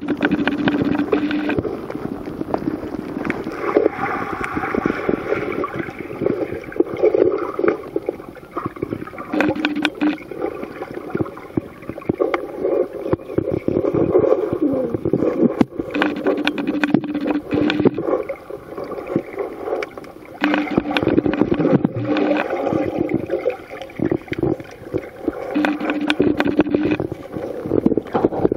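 Flowing stream water heard through a waterproof camera held under the surface: a muffled, gurgling rush with many small clicks and knocks. A low steady tone comes and goes several times.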